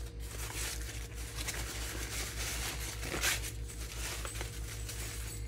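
Husks of a hot microwaved ear of corn rustling and tearing as they are peeled back by hand, with a louder rip about three seconds in.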